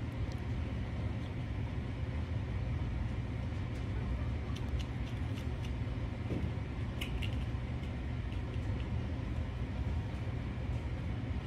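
Steady low mechanical hum, with a few faint light clicks near the middle.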